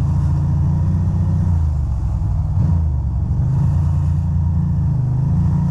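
2006 Ducati Monster 620's air-cooled L-twin engine running at low revs under light throttle, its pitch rising and falling slightly a couple of times.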